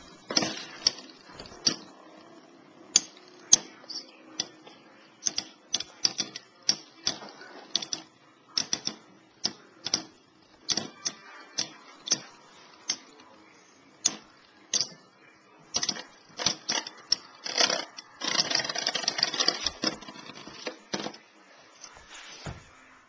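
Two metal-wheeled Beyblade spinning tops, Lightning L-Drago 100HF and Rock Aries ED145B, clashing in a plastic stadium: sharp clacks at irregular intervals, with a quick rattling run of hits around eighteen to twenty seconds in.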